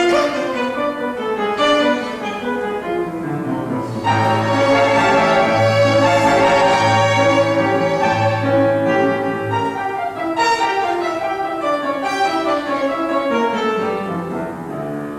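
Piano trio of violin, cello and piano playing classical chamber music, with the cello sounding long low notes through the middle.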